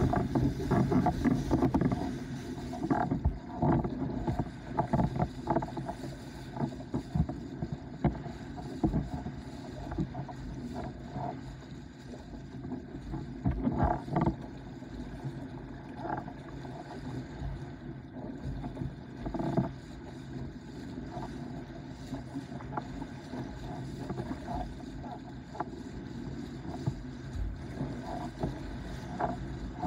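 Starboard S-Type windsurf board sailing across chop: a steady rush of wind and water with irregular slaps and knocks as the hull hits waves, loudest in the first couple of seconds.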